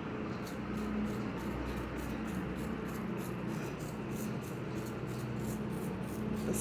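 Vehicle engine running steadily at a distance, a low hum, with a faint scratchy rasp repeating about three to four times a second.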